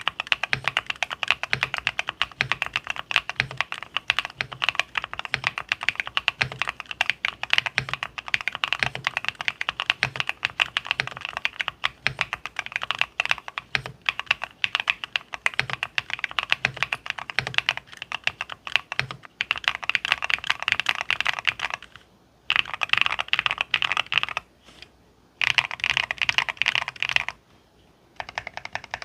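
Fast continuous typing on a MonsGeek M3 Pro custom mechanical keyboard with BSUN Green switches: a rapid stream of key clacks, broken by a few short pauses in the last third.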